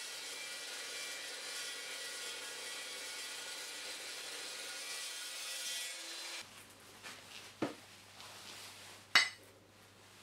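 Evolution Evosaw 355 chop saw's 355 mm metal-cutting blade cutting through steel, a steady grinding rasp that stops about six seconds in. A few sharp knocks follow, the loudest about nine seconds in.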